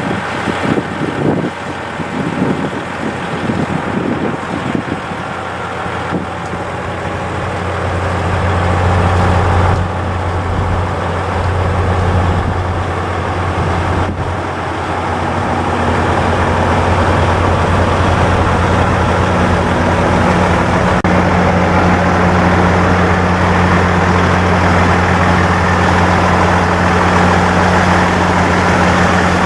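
Diesel engine of a Nippon Sharyo KIYA 95 contact-wire and track measuring train running with a steady low hum. The hum comes in about a quarter of the way through, grows louder until about halfway, then holds steady.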